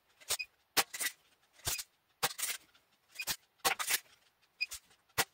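Feinwerkbau 65 spring-piston match air pistol being handled, cocked and fired over a chronograph: a quick, irregular series of sharp clicks and short rasping strokes, about a dozen in all.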